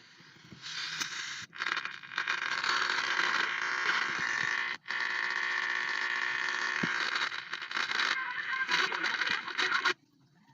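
Static and crackle from a portable FM/AM radio receiver's speaker, a steady hiss with faint whistling tones in it. It cuts out suddenly twice, and stops near the end.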